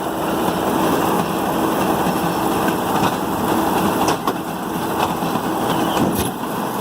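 A John Deere 4440 tractor's six-cylinder diesel and a New Holland Roll-Belt 450 round baler running together while baling hay: a steady, loud mechanical din with a few sharp knocks, the clearest about four seconds in.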